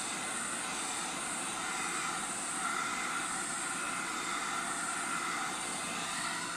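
Handheld hair dryer running steadily, blowing over wet acrylic pour paint to bring out the cells.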